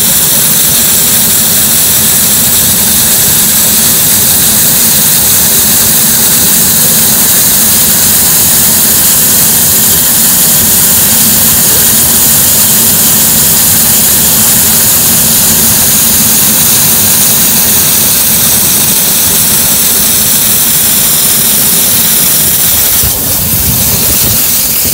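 Steam locomotive 44871, an LMS Stanier Black Five built at Crewe in 1945, standing with its safety valves blowing off: a loud, steady hiss of escaping steam, dipping briefly near the end.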